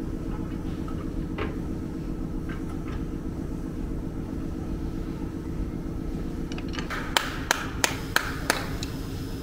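Five sharp knocks in quick succession about seven seconds in, from tools striking metal during coil-spring and strut work, over a steady low hum.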